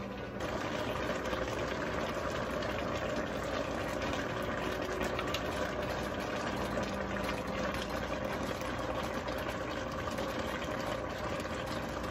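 Steady rushing noise of a stainless-steel pot of vegetables boiling hard on an electric stove, with a low steady mechanical hum under it.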